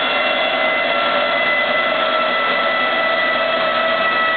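A turbocharged Volvo wagon's wheels and drivetrain coasting down on chassis dyno rollers after a pull, a steady whine with several tones over a loud rushing noise, sinking slightly in pitch as the speed falls.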